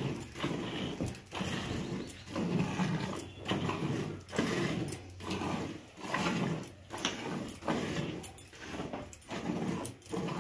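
Cow being hand-milked into a steel bucket: squirts of milk hitting the milk already in the bucket, in an even rhythm of about one and a half squirts a second.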